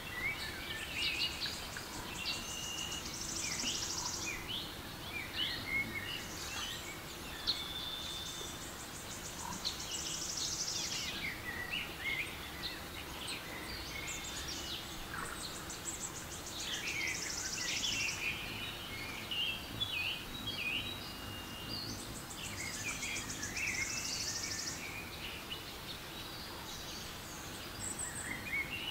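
Recorded forest-and-birdsong ambience from a relaxation sound app: many birds chirping and whistling over a soft steady background hiss. A buzzy high trill comes back about every six or seven seconds.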